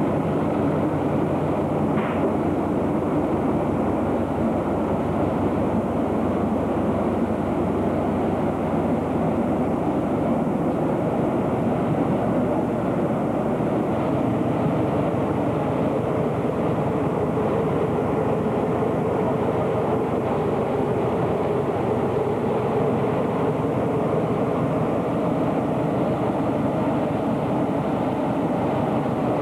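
Floodwater from an overflowing creek rushing through a village street in a steady, unbroken torrent.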